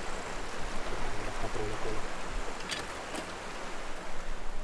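Steady rushing of a mountain river, with two faint clicks about three seconds in.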